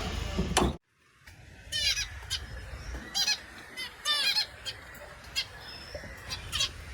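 Small finches calling in a cage: short chirps, some single and some in quick runs of two or three, starting after a brief drop-out about a second in.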